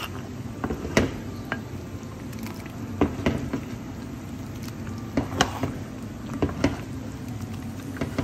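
A pot of thick oha soup boiling, a steady low bubbling broken by irregular sharp pops and clicks.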